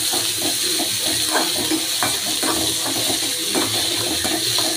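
Chopped onions and curry leaves sizzling in hot oil in an aluminium kadai, a steady hiss, while a steel spoon stirs them with repeated scraping strokes against the pan.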